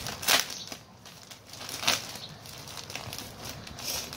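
A clear plastic polybag crinkling and rustling as fingers pick at and peel its sealing tape. There are two louder rustles, one about a third of a second in and one just under two seconds in, over lighter crackling.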